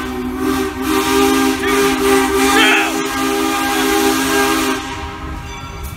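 Steam locomotive No. 425's whistle blowing one long, loud chord of several notes over a hiss of steam, fading out about five seconds in.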